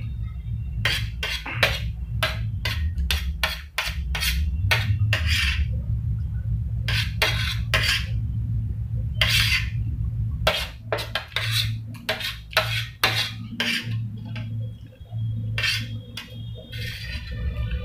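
A steel spoon scraping and clinking against a stainless steel plate as the last grains of fried rice are gathered up, with many sharp clicks and short scrapes at an uneven pace. A steady low hum runs underneath.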